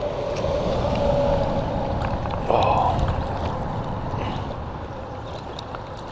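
River water swirling and splashing around a landing net as a trout is netted in a shallow stream. There is a brief louder splash about two and a half seconds in.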